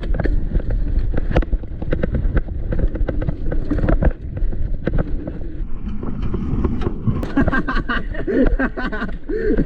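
Downhill mountain bike rolling fast over rough pavement, clattering with many sharp knocks, with heavy wind rumble on the microphone.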